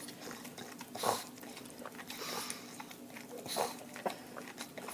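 A pug sucking and smacking at the nipple of a small feeding bottle: wet mouth clicks, with louder slurps about a second in, near the middle and at three and a half seconds.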